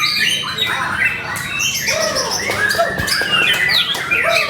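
White-rumped shama (murai batu) singing non-stop: a fast, varied run of whistled notes sliding up and down, broken by sharp clicks and chatters.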